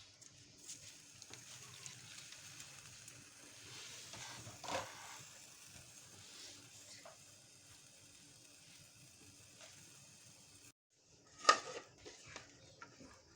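Marinated chicken pieces sizzling faintly as they roast, a low steady hiss. There is a small knock about halfway through, and a sharp clack of a utensil or pan near the end, after a brief cut.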